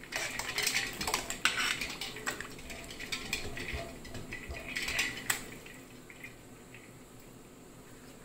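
Metal tongs clinking against a stainless steel bowl and ice cubes as blanched cabbage leaves are swished through an ice-water bath, with a little water sloshing. The rapid clinking stops about five and a half seconds in.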